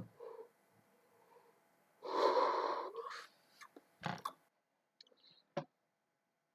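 A person yawning: one long breathy yawn about two seconds in, lasting just over a second, followed by a few short clicks.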